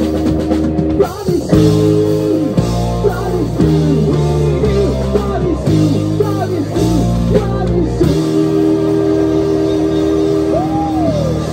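Rock band playing loudly on electric guitars and drum kit, with held chords that change about once a second and a bending note near the end.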